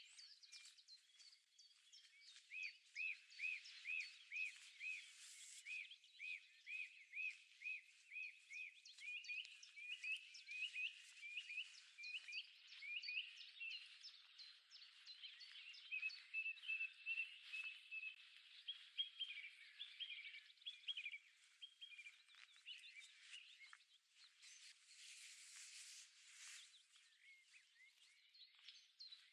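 Several songbirds singing and calling together, faint, with one bird repeating a short note about twice a second through the first half. A brief soft rush of noise comes in near the end.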